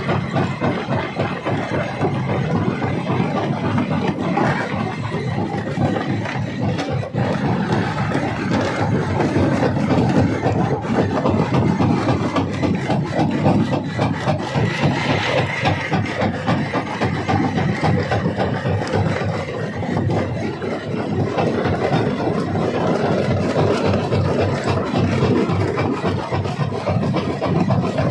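Rock crusher running, with stone grinding and cracking inside it in a continuous dense crunching.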